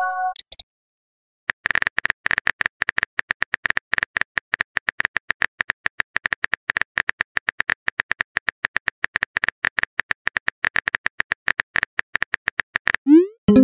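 Rapid clicks of a phone keyboard typing sound effect, about eight a second, as a message is typed out letter by letter. A short chime of a few tones sounds at the very start, and a quick rising swoop, a message-send sound, comes near the end.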